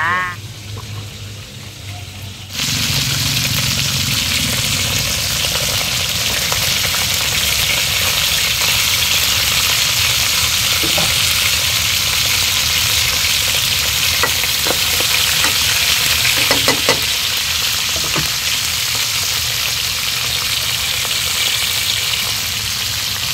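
Fried tulingan (bullet tuna) pieces and sauce sizzling in a hot wok. The sizzle starts suddenly about two and a half seconds in and holds steady, with a few faint clicks now and then.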